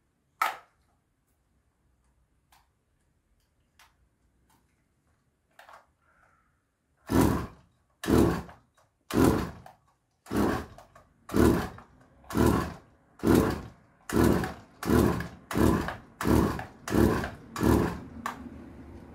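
Stihl FS 120 brushcutter's two-stroke engine being pull-started: about a dozen pulls on the recoil starter, each about half a second long, coming roughly once a second and quickening toward the end, after a few faint clicks. Near the end a steadier, quieter noise sets in.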